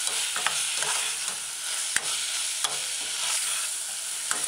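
Mushrooms, saltfish chunks and onions sizzling in oil in a saucepan on medium-low heat while a metal spoon stirs them, with a few sharp clicks of the spoon against the pan.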